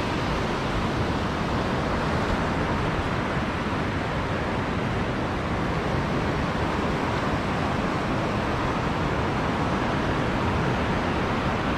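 Steady rushing noise of sea surf, even throughout with no single wave crash standing out.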